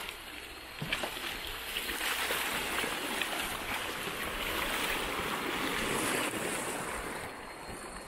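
River water rushing and splashing around a bamboo raft, swelling louder from about two seconds in and easing off near the end, with a single knock about a second in.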